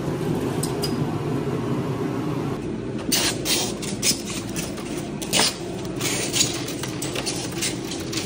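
Footsteps on dimpled foam floor insulation panels, a scattering of short scuffs starting about three seconds in, over a steady low mechanical hum.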